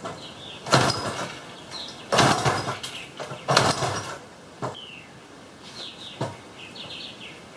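Old Wright gas-powered reciprocating saw being pull-started: three hard pulls on the recoil starter, each a short whir of the engine turning over on compression, and it does not fire. Two short knocks follow.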